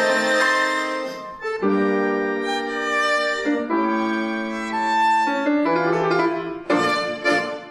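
Violin, accordion and piano trio playing an instrumental arrangement. Long held chords change about every two seconds, and piano notes are struck near the end.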